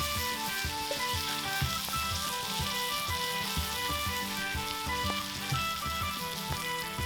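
Thick-cut bacon and eggs sizzling steadily in a frying pan.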